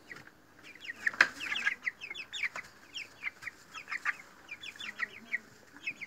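Young broiler chickens peeping: many short, high, falling cheeps repeating steadily. A single sharp click sounds about a second in.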